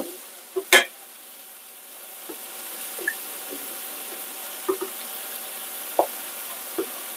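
A spoon stirring and scraping in a pot of cheese sauce, with a few sharp knocks against the pot, over a faint steady sizzle of frying.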